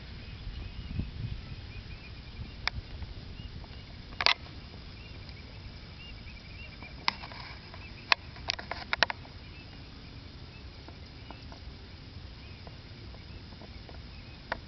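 Open-field ambience: a low rumble with faint, thin chirping repeating high up, and a few sharp clicks, several close together about halfway through.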